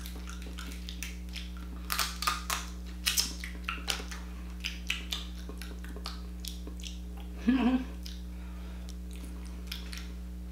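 Close-up eating sounds: crab shell being cracked and picked apart by hand, with chewing, heard as a run of sharp irregular clicks and crackles that thin out after about seven seconds.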